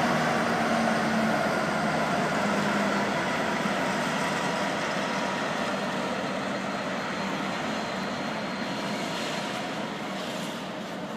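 Container freight train passing, its wheels running on the rails in a steady noise that slowly fades as the train draws away.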